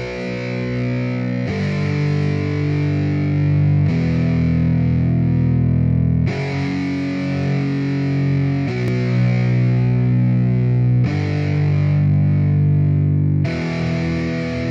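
Background music without vocals: distorted electric guitar with effects, holding sustained chords that change about every two and a half seconds.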